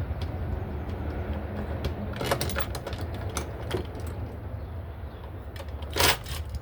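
Metal clicks and rattles of hand tools and loosened parts as the throttle body is unbolted and worked off. There is a louder clatter about six seconds in, over a steady low hum.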